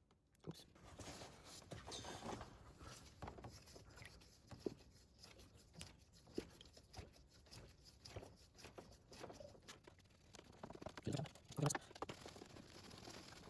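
Faint, irregular pattering and small clicks as hydraulic fluid is poured from a bottle into the reservoir, filling the ABC and power steering system, with a few louder knocks near the end.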